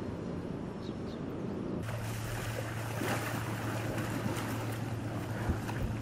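Wind and surf noise with a low steady boat-engine hum. About two seconds in it changes to wind and floodwater noise with a steadier low hum. A couple of sharp knocks come near the end.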